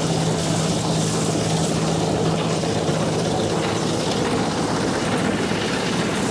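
John Deere T550i combine harvester running while cutting and threshing barley, heard close beside its header: a loud, steady machine drone. Its low hum eases a little about halfway through.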